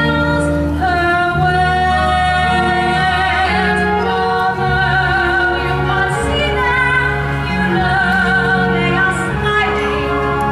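A woman singing a slow song with vibrato, holding long notes, over sustained low accompaniment notes.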